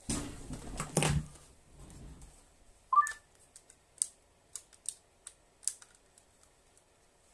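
Sony Walkman WM-50 cassette player being handled, then one sharp click about three seconds in and a run of about six lighter clicks as its buttons are pressed. No motor is heard: there is no battery in the player.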